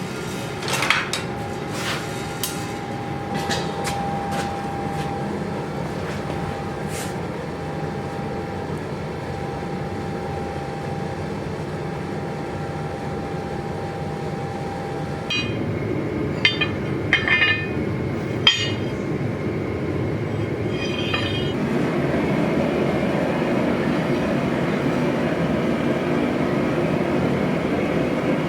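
Steady rushing workshop roar with a held ringing tone through the first half. Scattered light metallic clinks and taps come throughout, with a cluster of them a little past the middle.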